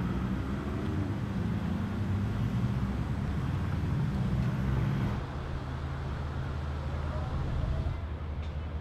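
City street traffic: a vehicle engine's low drone, loudest for about the first five seconds and then easing off, over a steady hum of passing cars.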